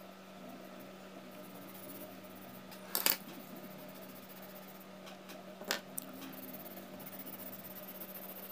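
Sharp clicks of small hard drawing tools set down or picked up on a wooden desk: a double click about three seconds in and another click midway, over a faint steady hum.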